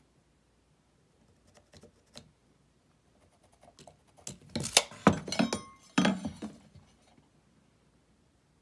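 A few faint taps, then a cluster of sharp clinks and knocks with a brief metallic ring: a tape measure and a metal speed square being handled and set against wood on the bench.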